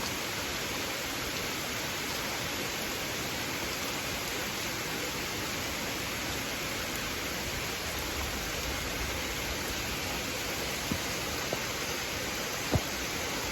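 Thunderstorm rain falling in a steady hiss, with a few short sharp taps near the end.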